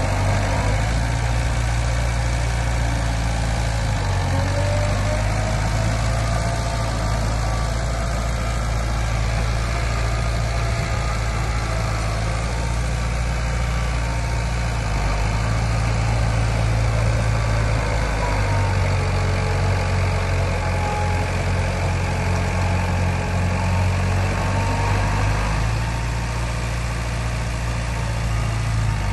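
Heavy diesel engine of earthmoving machinery running steadily. Its low note shifts up and down a few times as the load changes, and a fainter whine rises and falls in pitch over it.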